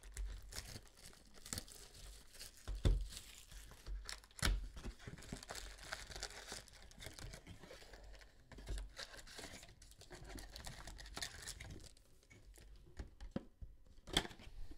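A cardboard Panini Prizm basketball card box is torn open and its foil packs are pulled out by hand: tearing cardboard, crinkling pack wrappers and a few thumps as the packs are handled.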